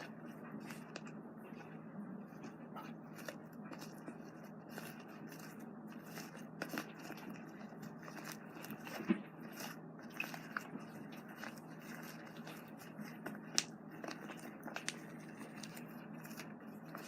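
Fluffy slime made from shaving cream and glue being handled and squished, giving soft sticky crackles and small pops, with a couple of sharper clicks about 9 and 13 seconds in. A steady low hum sits underneath.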